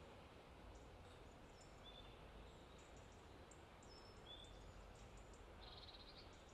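Faint outdoor background with a low steady rumble, and a few short, high bird chirps, with a quick run of them near the end.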